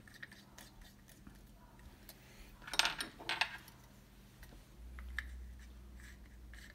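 Small clicks and scrapes of a small glass bulb being screwed into a brass lamp socket, with a louder clatter about three seconds in and a low rumble over the last two seconds.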